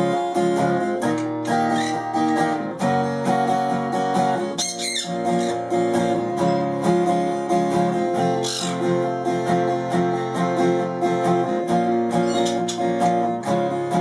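Acoustic guitar being strummed, a steady run of chords.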